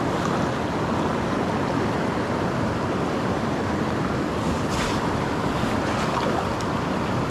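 Mountain creek water rushing steadily over the streambed, an even, unbroken hiss.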